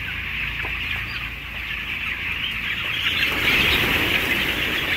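A large flock of 16-day-old broiler chickens cheeping and chirping together in a dense, steady chatter, which grows louder a little over three seconds in.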